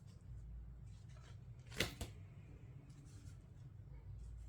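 Quiet handling noise over a low hum, with one sharp click a little under two seconds in and a lighter click just after.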